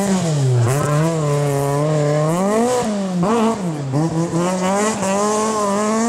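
Opel Kadett C coupé rally car's engine revving hard at full throttle, the pitch climbing and then dropping sharply several times as the driver lifts off and gets back on the power through a sliding corner. Loose gravel and tyre noise run under the engine.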